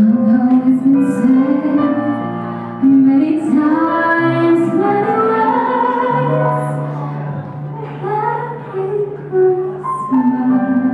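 A woman singing a melody with held notes over instrumental accompaniment.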